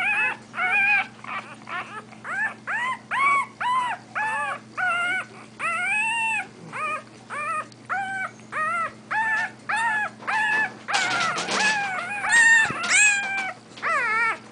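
One-week-old English bulldog puppies crying: a steady string of short, high whimpering cries, about two a second, each rising and falling in pitch. The cries grow louder and rougher about eleven seconds in.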